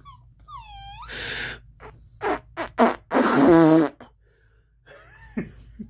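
Playful mouth noises from a person making faces: a short whiny whimper, a few puffs of breath, then a long blown raspberry of buzzing lips about three seconds in, and another brief whine near the end.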